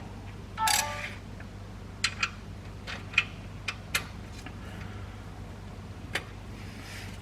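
Sharp, scattered metallic clicks and clinks of hand tools as the oil drain plug is threaded back in and tightened with a wrench, after a brief squeak just under a second in.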